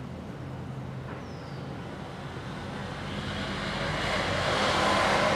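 A passing road vehicle: a low engine hum with a rush of road noise that grows steadily louder through the second half.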